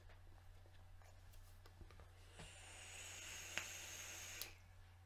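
Vape device being drawn on: a faint airy hiss with a thin high whistle of air through the atomizer for about two seconds, cut off sharply, after a few light clicks from handling the device.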